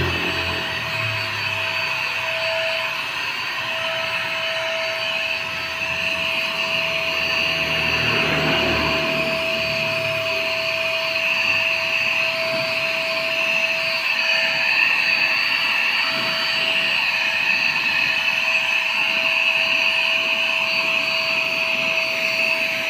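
Paint sprayer running steadily: a constant motor whine with a hiss of air and spray, and a low rumble that fades out about ten seconds in.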